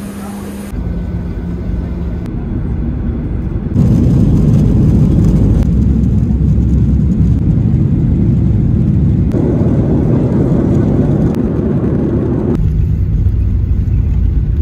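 Loud, steady low rumble of a moving vehicle heard from inside. Its level and tone jump abruptly a few times, about a second in, about four seconds in and again later.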